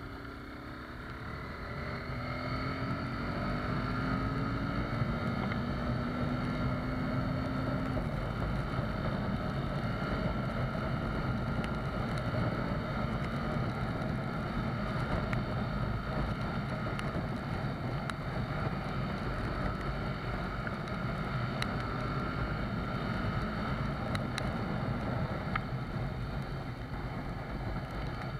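Honda CBR250R's single-cylinder engine through its stock exhaust, rising in pitch as it pulls up through the gears over the first several seconds, then cruising steadily. Heavy wind and rain noise run under it.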